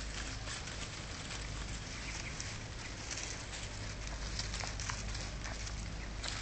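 Outdoor background noise: a steady low hum with many scattered short ticks and rustles.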